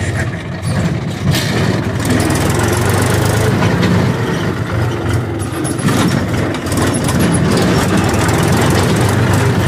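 Tractor's diesel engine running steadily as the tractor drives along a dirt track, with a few brief knocks.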